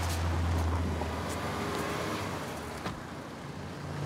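A car engine running with a steady low hum, amid road traffic noise.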